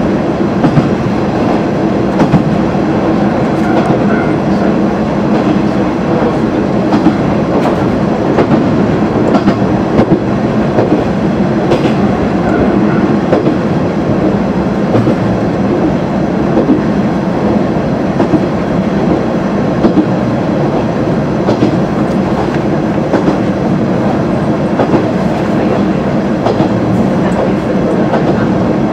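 Kantō Railway KiHa 350 diesel railcar under way, heard from inside the cab. The old DMH17 diesel engine drones steadily under wheel and rail-joint clickety-clack, with sharp clicks scattered through.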